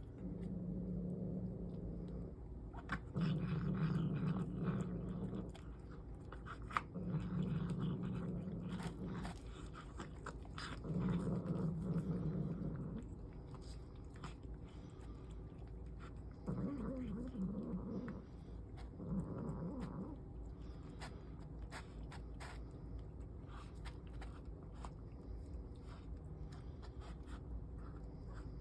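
Mother cat making long, low growling noises while she eats, about six drawn-out growls of one to two seconds each, with crunching and clicking chewing in between. This is a cat grumbling over food as it eats.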